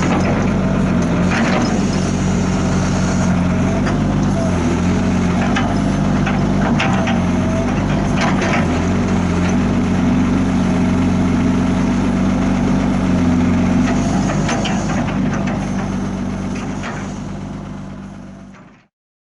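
Diesel engine of an old Sumitomo 20-ton hydraulic excavator running steadily, with a few sharp knocks, fading out near the end.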